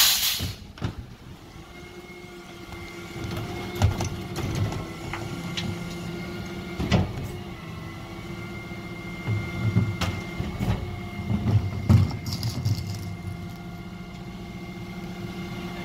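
Refuse lorry's rear bin lift working: a steady mechanical whine over the running truck, with several sharp knocks as a plastic wheelie bin is hooked on, lifted and banged empty into the hopper.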